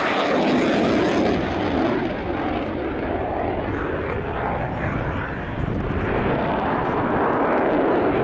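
Dassault Rafale C fighter's twin Snecma M88 turbofans running at high power with afterburner as the jet manoeuvres overhead: a dense, steady jet noise. It eases a little a couple of seconds in and swells again near the end.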